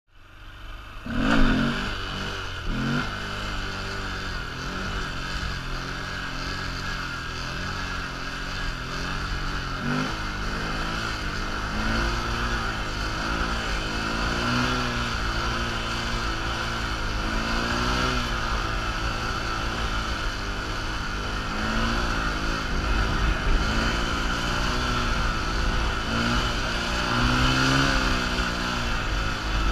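Honda Grom's 125 cc single-cylinder four-stroke engine revving hard about a second in, then held on the throttle through a long wheelie, its pitch rising and dipping every second or two, over a steady low rumble of wind.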